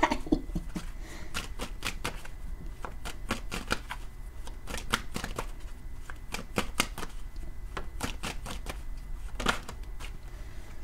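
A deck of tarot cards being shuffled by hand: a run of quick, irregular papery clicks and flicks as the cards slide and tap against one another.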